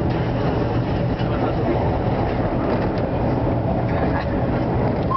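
Vintage Lo-V subway train running through an underground station: a steady rumble of wheels and traction motors with a low hum, and a few sharp clicks from the rails.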